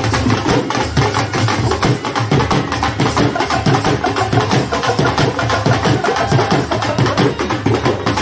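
Live sapera been party music: been pipes playing a melody over dhol drums and small hand cymbals, the drums keeping a fast, even beat.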